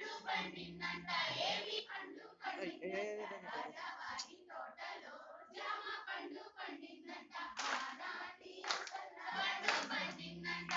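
A group of women singing together while clapping their hands in time with a folk circle dance, the sharp claps coming several times a second over the singing.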